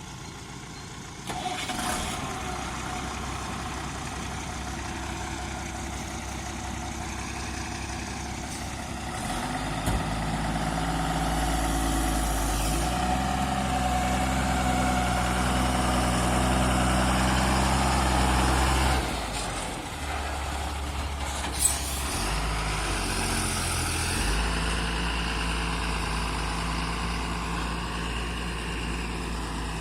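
Diesel engine of a JCB 3DX backhoe loader running under load, its revs stepping up and down as it works, with a steady whine over it. Two sharp knocks stand out, about ten seconds in and near the twenty-two-second mark.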